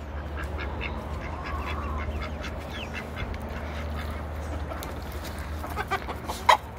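Domestic ducks quacking in many short calls, over a low steady rumble, with a few sharp clicks near the end.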